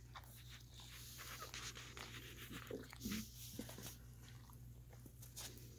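Newborn puppies, eyes not yet open, making faint squeaks and grunts while they squirm and nurse. Soft smacking clicks run throughout, and a few brief squeaks come around the middle.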